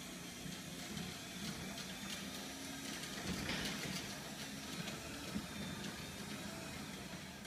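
Chain-drive garage door opener running, its motor humming steadily as the chain pulls the door along its track.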